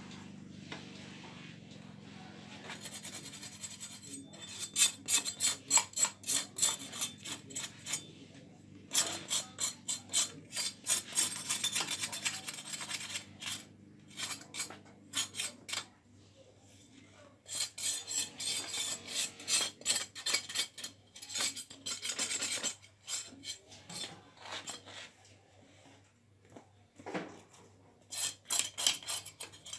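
A knife scraping the crisp skin of grilled pork in quick repeated rasping strokes. The strokes come in several bouts separated by short pauses.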